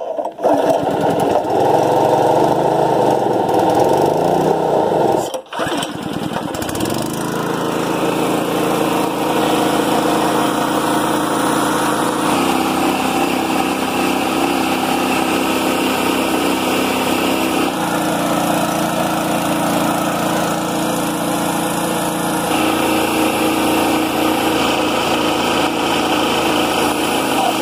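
Honda GX160 single-cylinder engine firing on the pull and running steadily, driving the Campbell Hausfeld compressor's pump as the tank pressure builds. A very brief break about five seconds in.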